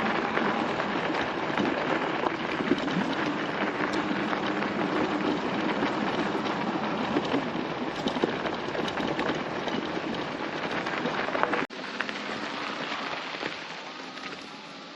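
Fat-tyre e-bike riding over a rough track: a steady crackling rush of tyres on the ground and wind on the microphone, with a faint low hum in the first half. About three-quarters of the way through it cuts abruptly to a quieter, softer rush that fades.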